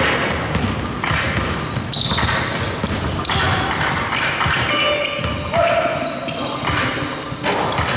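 Basketball game in play: the ball bouncing on the court again and again, amid indistinct voices of players.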